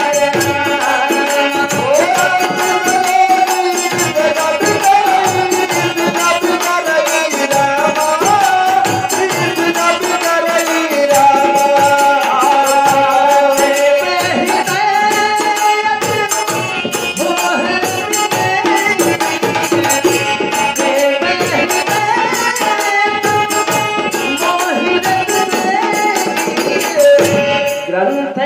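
Bagheli folk Ramayan singing: a voice carrying a devotional melody over a steady beat of folk percussion with jingling rattles.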